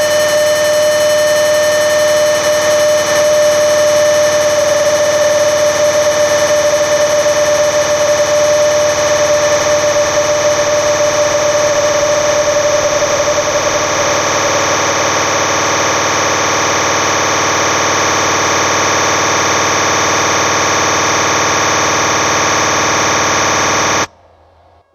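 Electronic noise drone from a live experimental music set: a dense, steady wall of hiss with many sustained tones held through it. It cuts off suddenly near the end.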